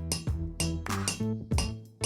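Background music with pitched notes and a regular percussive beat.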